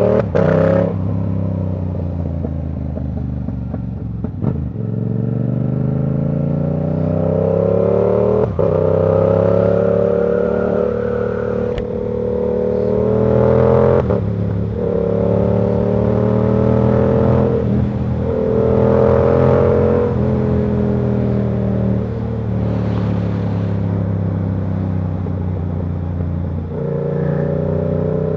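Yamaha R7's 689 cc parallel-twin engine pulling under way. Its pitch climbs and levels off again and again, with short breaks and drops at each of several gear changes.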